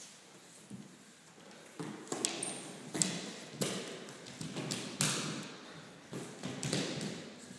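Dancers' feet and bodies landing and sliding on a studio floor: a run of irregular thuds, each followed by a short brushing scuff, beginning about two seconds in.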